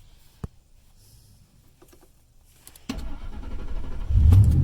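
A click, then a 2000 Ford F-150's starter cranking from about three seconds in and the engine catching just after four seconds and running with a steady low rumble. It starts quickly on the key turned in the freshly repaired ignition lock cylinder.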